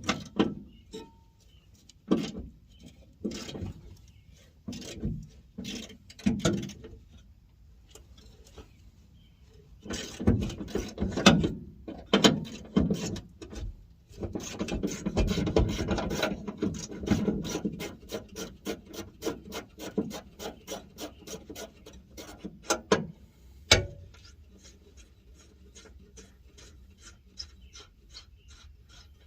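Hand tools working on rusted hitch bolts: irregular rasping and scraping strokes with clicks and knocks, a busy run of quick strokes in the middle, and quieter rapid ticking near the end.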